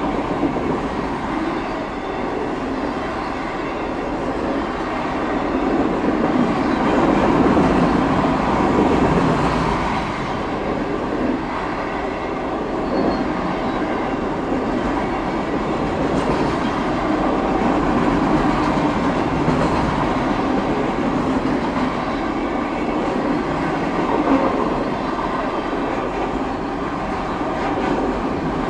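A long, heavy Norfolk Southern freight train's cars rolling past, a steady noise of steel wheels on rail that swells a little several seconds in.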